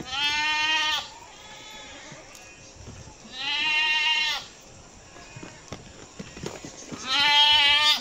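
Goats bleating: three long, quavering bleats about a second each, spaced a few seconds apart, the last the loudest.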